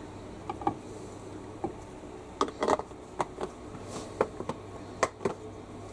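A series of about a dozen short, irregular light clicks and knocks over a steady low hum.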